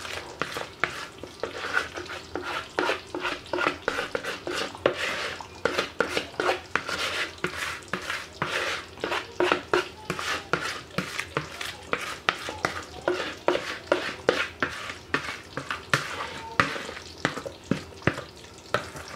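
Oxtail pot on the heat sizzling and crackling with frequent irregular pops as the seasoning sauce and butter beans are tipped in, with stirring and scraping sounds mixed in.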